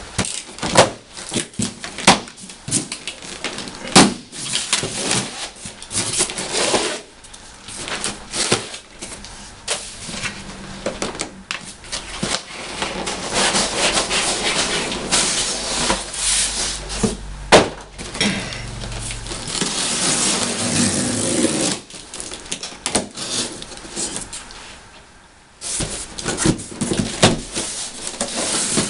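A cardboard shipping carton being opened: plastic strapping is cut off and a box cutter slices along the cardboard, with sharp knocks and clicks as the box is handled and a long stretch of scraping in the middle as the blade cuts and the flaps are pulled open.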